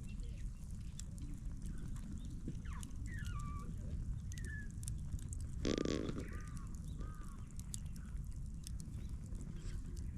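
Small birds chirping now and then over a low steady rumble, with one short, louder, harsh call about six seconds in.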